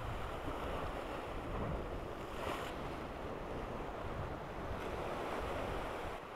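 Sea surf washing steadily against a rocky shore, with wind on the microphone.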